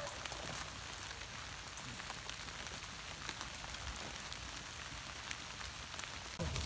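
Faint steady outdoor ambience in leafy woods: a soft even hiss with scattered light ticks.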